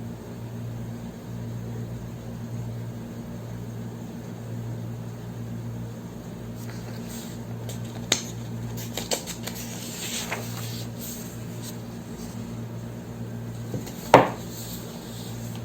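Light handling clinks of crockery over a steady low hum: a few soft taps and clicks midway, then one sharper clink with a brief ring near the end.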